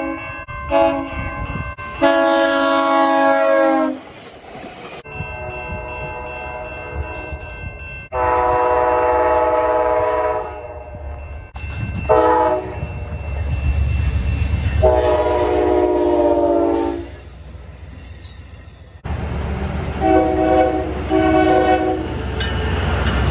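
Train air horns sounding chords in a string of separate clips: several long blasts and a few short ones, ending with two short blasts in quick succession. A low rumble of a passing train runs beneath, strongest in the middle.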